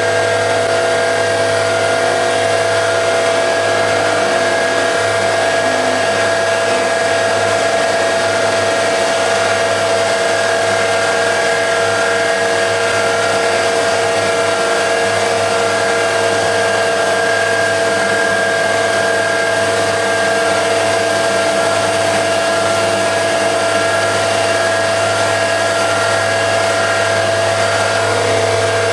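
Milling machine running steadily at high speed, with a constant motor whine, its spindle turning a high-speed steel drill bit in a flow-drilling attempt.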